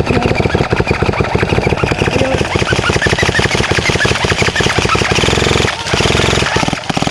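Airsoft electric rifles firing on full auto: a rapid, steady clatter of shots with a brief break near the end.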